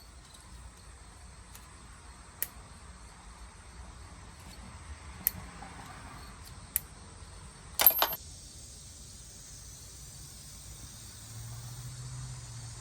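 Sparse light clicks of small metal pump parts being handled, with a brief louder clatter about eight seconds in. A low steady hum comes in near the end.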